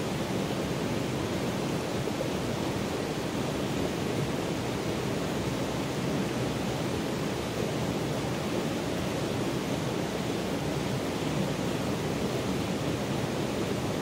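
Steady rush of stream water flowing over rocks, unbroken and even.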